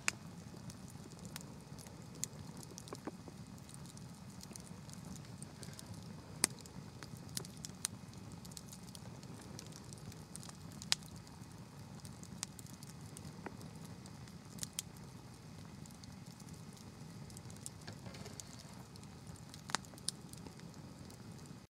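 Wood campfire crackling: irregular small snaps and pops with a few sharper, louder pops, over a steady low background.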